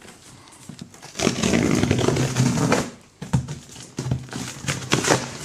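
A kitchen drawer sliding open on its runners with a rough rumble lasting about a second and a half, then several sharp clinks and knocks of cutlery being rummaged in the drawer.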